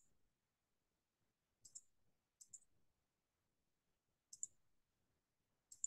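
Faint computer mouse clicks: four pairs of short, sharp clicks at uneven intervals, picked up by a call microphone.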